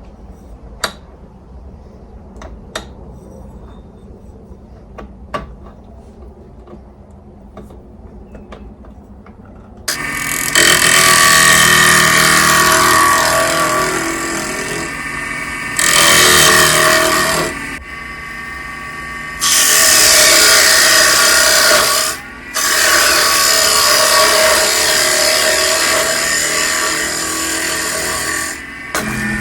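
Shop Fox W1704 mini wood lathe running while a turning tool cuts into a spinning bowl blank: a loud, dense cutting noise with a steady motor tone. It starts about a third of the way in, after several faint clicks, and it drops off briefly two or three times.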